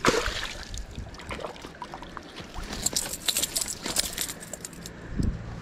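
Handling noise of a muskellunge in a landing net: rustling and a cluster of sharp clicks and clinks around the middle, with a dull thump near the end.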